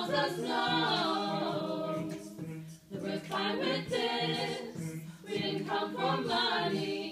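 Mixed a cappella choir of men's and women's voices singing a pop song in harmony, with a steady low held note under the moving upper parts and a brief break about three seconds in.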